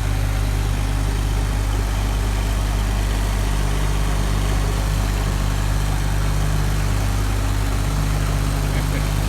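Farm tractor engine running at a steady speed while clearing snow with a snowblower attachment.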